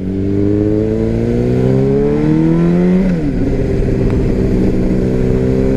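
Motorcycle engine under way, its pitch rising smoothly for about three seconds as it accelerates, then dropping quickly and settling to a steady pitch.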